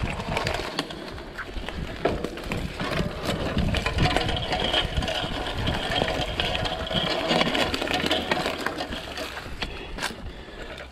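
Mountain bike riding a dirt trail: tyres on the ground and the bike rattling over bumps, with wind noise on the microphone. A steadier whir runs from about four to eight seconds in.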